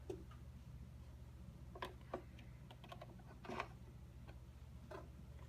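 A handful of faint, sharp plastic-and-metal clicks and small knocks as DDR memory modules are pressed into their slots in a Power Mac G5, over a steady low hum.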